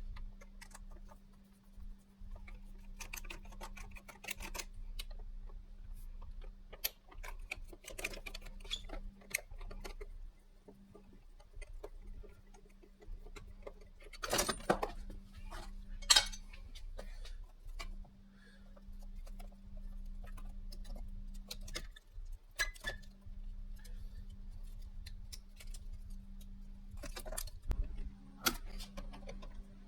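Scattered clicks, taps and light metallic knocks from a keypad doorknob lock being handled and taken apart, with a couple of sharper knocks about halfway through.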